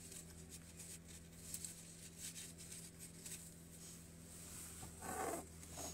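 Faint rustling and a few light clicks of leaves and stems being handled, over a steady low hum, with a louder rustle about five seconds in.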